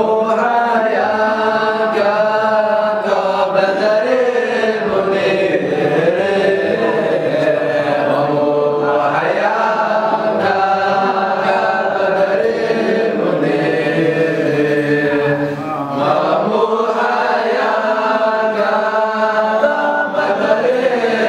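A group of young men's voices chanting an Islamic dhikr together in melodic, repeated phrases.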